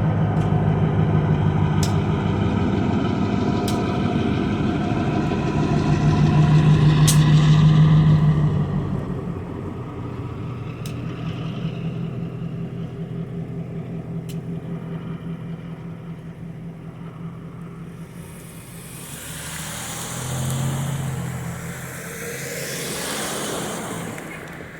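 A train going by: a loud steady pitched drone for the first nine seconds, with a few sharp clicks, then a quieter rolling rumble with fast, even clicking from the wheels. It ends in a rushing, wind-like noise.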